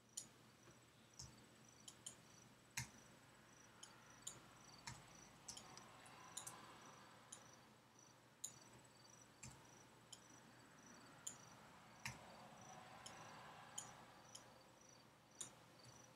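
Quiet, sharp clicks of a computer mouse and keyboard, about twenty at uneven intervals, as faces are selected and deleted in the modelling software. Under them is faint room tone with a soft, high, evenly pulsing tone.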